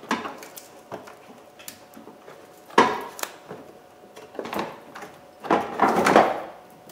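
Plastic fan shroud and aluminium A/C condenser of a Dodge Ram knocking and scraping against each other as they are worked apart by hand. There are several separate knocks, the sharpest about three seconds in, and a longer clattering scrape near the end.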